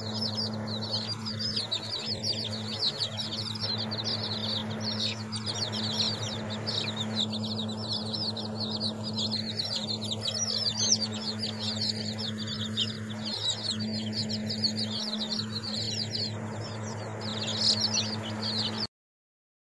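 A brood of week-old chicks peeping continuously, many short high chirps overlapping, over a steady low hum. It all cuts off abruptly near the end.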